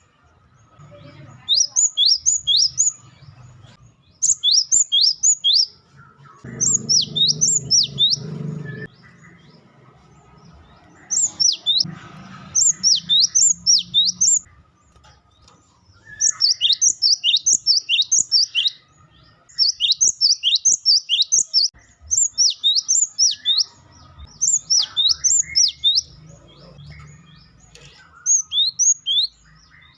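Cinereous tit (gelatik batu) calling in quick bursts of sharp, high, falling whistled notes, several notes per burst, with short pauses between bursts.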